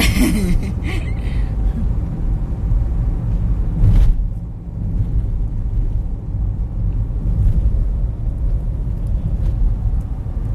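Steady low rumble of road and engine noise inside a car's cabin, with a single sharp knock about four seconds in.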